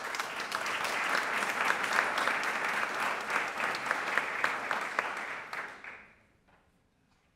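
Audience applauding: a dense patter of handclaps that fades out about six seconds in.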